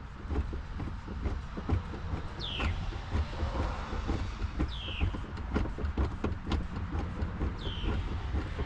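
Scattered clicks and knocks of plastic car trim and a hand tool being worked, over a steady low rumble. A bird gives a short call that slides downward three times, about every two to three seconds.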